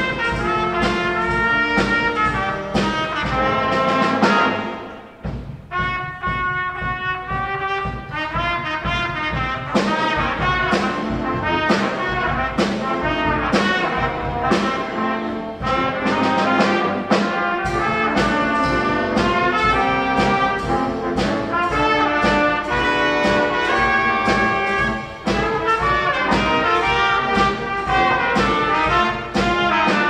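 A student band of saxophones, trumpets and trombones playing a tune together over a steady beat, with a brief drop in the playing about four to five seconds in.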